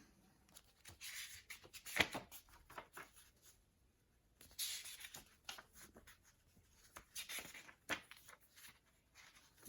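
Faint handling noise from hands working a weather radio: a scatter of soft clicks and rubbing, with a sharper click about two seconds in.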